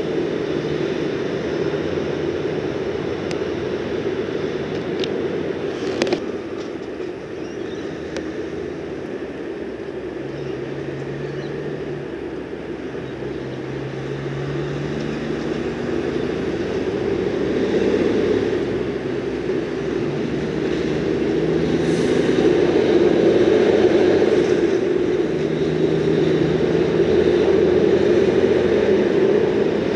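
Road traffic passing: a steady rumble with the engine drone of heavier vehicles such as trucks coming and going, growing louder in the second half. A sharp click about six seconds in.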